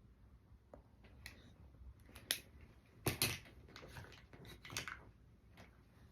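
Makeup items being handled: a scattering of small clicks and taps, about half a dozen, loudest around the middle, over a quiet room.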